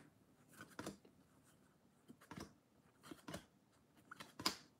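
A few faint, short slides and flicks of Bowman baseball trading cards being moved one by one from the front of a stack to the back, spaced irregularly.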